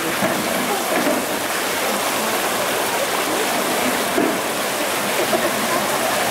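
Steady rush of running water, like a waterfall or stream pouring into a pool, with faint voices of onlookers in it.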